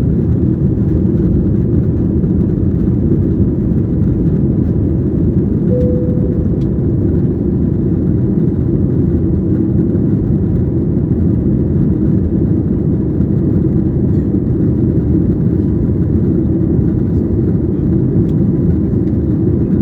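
Steady engine and air noise inside the cabin of an Airbus A320-214, a constant low rumble with no change in level. A brief faint tone sounds about six seconds in.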